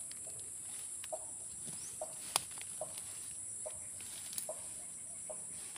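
A chicken clucking in short separate notes, a little under one a second, over a steady high-pitched insect drone. A few sharp clicks sound among them, the loudest about two and a half seconds in.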